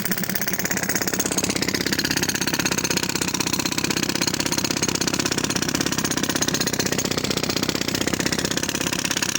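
Demolition hammer breaking concrete, its rapid blows running in a fast, even hammering rhythm.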